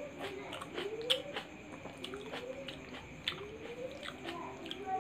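Close-up chewing of a bite of raw tomato: a run of small clicks and smacks from the mouth. A soft rising tone repeats about once a second behind it.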